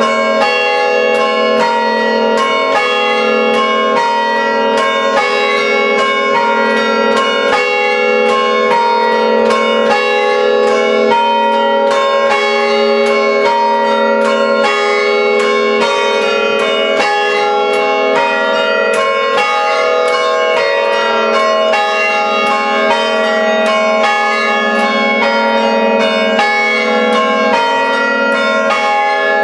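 Five church-tower bells struck in quick succession through rope pulls, playing a traditional rhythmic peal. There are several strikes a second, and each bell rings on into the next.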